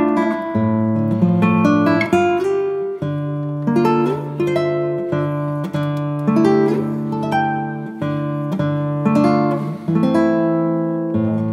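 Instrumental background music played on acoustic guitar, with plucked notes starting every fraction of a second over held lower notes.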